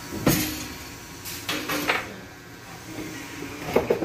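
Handling noise: a sharp knock about a quarter second in, a cluster of clattering knocks around the middle, and two quick clicks near the end.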